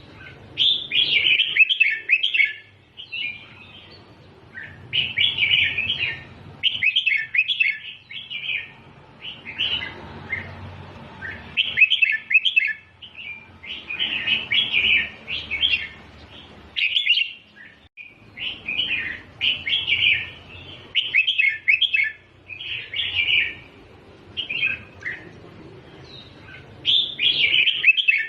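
Red-whiskered bulbul singing: short, bright phrases of chirping notes, each about a second long, repeated over and over with brief pauses between them.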